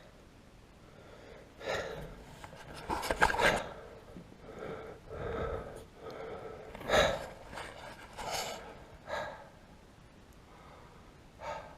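A man breathing hard and grunting with effort in a series of short bursts, with a few sharp clicks, while he strains to press the rear window and its rubber seal into place.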